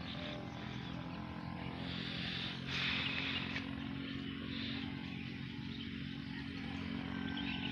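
A steady low engine drone from a distant motor, holding one even pitch throughout, over faint outdoor field ambience.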